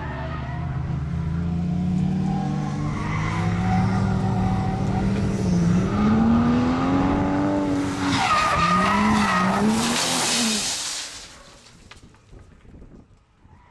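Drift car's engine revving hard as the car slides sideways, its pitch climbing and wavering with the throttle, joined by loud tyre squeal in the second half. The sound drops away sharply about eleven seconds in.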